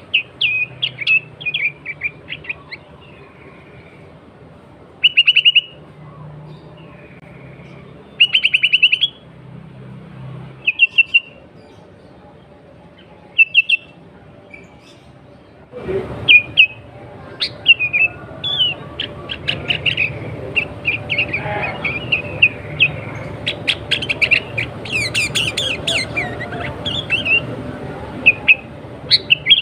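Sooty-headed bulbul (kutilang) calling: bursts of short, quick chirps and rattling trills with pauses between them, growing busier and overlapping from about halfway through, over a steady background hiss.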